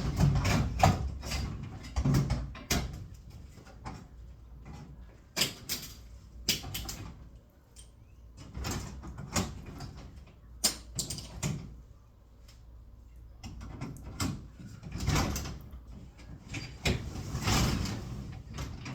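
Irregular metal clicks and knocks of garage door rollers being worked out of their hinge fixtures and new rollers fitted, with a couple of longer scraping rattles near the end as the door section is shifted.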